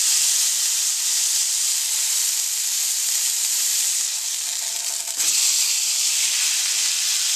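A boneless ribeye steak sizzling in a hot cast-iron skillet as its edges are seared, the meat held up on a fork. About five seconds in there is a soft knock and the sizzle grows a little louder as the steak is laid back down.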